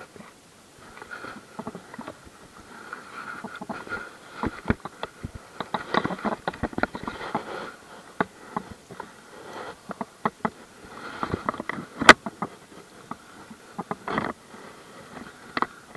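Irregular clicks, knocks and light rustling from hands handling a fishing rod, spinning reel and line close to the microphone, with one sharp click about twelve seconds in.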